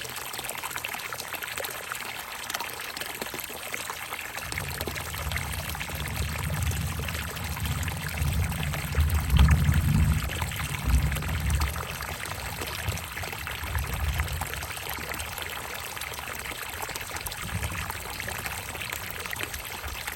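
Water pouring and trickling into a bucket, steady throughout. A deeper, heavier stretch comes in about four seconds in, is loudest around halfway, and eases off after about fifteen seconds.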